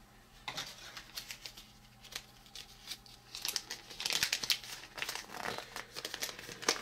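Crinkling and rustling of small toy packaging and a folded paper collector sheet being handled: faint, irregular crackles that grow busier after about three and a half seconds.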